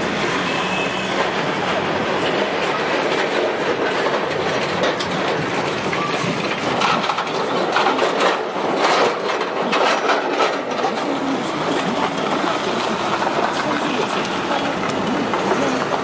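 Road noise inside a moving taxi: a steady rush of tyres and engine, with a run of knocks between about seven and ten and a half seconds in.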